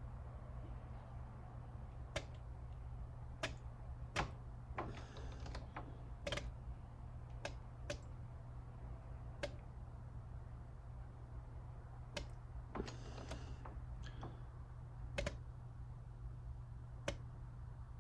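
Scattered sharp clicks and metal taps of parts and tools being handled at a workbench, over a steady low hum, with two brief rasping bursts about five and thirteen seconds in.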